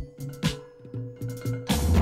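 Background music: drums striking about twice a second over a bass line and a held note, with a heavier drum hit near the end.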